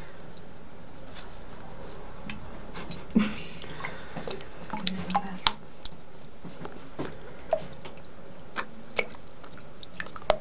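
Shallow water in a sink splashing and dripping while a hedgehog is scrubbed with a toothbrush: scattered small splashes and clicks over a steady low hiss, the loudest about three seconds in.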